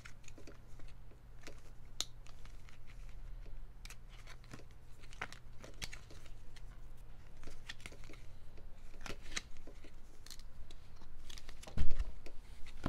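Glossy photocards being peeled apart and flipped through by hand: scattered light clicks and rustles of card, with one louder thump near the end.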